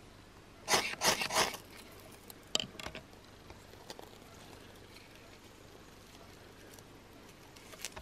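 A fire steel (ferro rod) struck against birch-bark tinder: three quick scraping strikes close together about a second in, then two shorter, sharper scrapes a second or so later, as the tinder catches.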